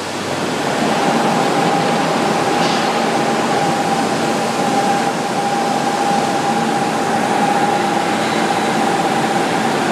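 Steady industrial din of a hot piercing mill for seamless steel tubes: machinery running with a noisy rumble and a steady whine that sets in about a second in.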